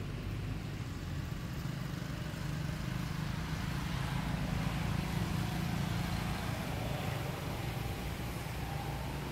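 Steady low rumble of a motor vehicle running, swelling slightly midway and easing off, with no distinct knocks or calls.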